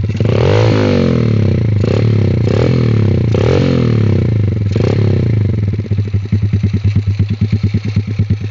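Honda XRM single-cylinder motorcycle engine revved through an aftermarket exhaust: a burst of revs right at the start, followed by several sharp throttle blips that rise and fall in pitch. About six seconds in it drops back to a steady, pulsing idle.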